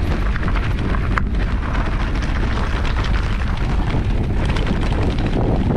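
Steady, loud wind rumble buffeting the microphone while riding, with one sharp click about a second in.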